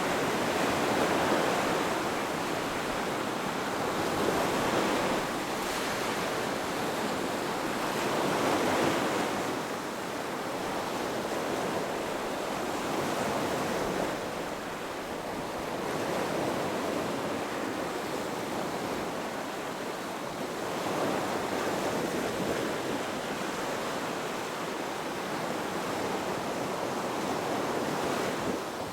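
Ocean waves breaking and washing onto a beach, a steady rush of surf that swells and falls back every few seconds.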